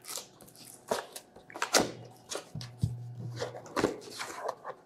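Cardboard product box being opened by hand: the seal broken and the lid flap lifted, giving a string of scrapes, rustles and light knocks, the loudest nearly two seconds in.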